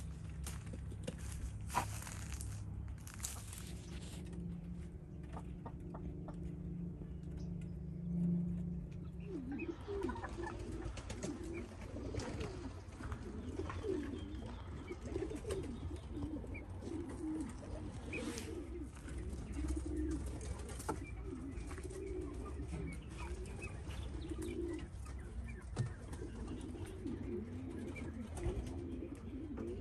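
Birds cooing in a low, warbling murmur, continuous from about ten seconds in. Before that there are a few seconds of a steady low drone and some scattered clicks.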